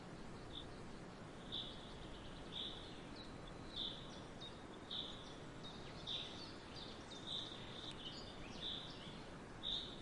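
A bird calling one short note over and over, about once a second, with fainter, higher chirps in between, over a steady background hiss of forest ambience.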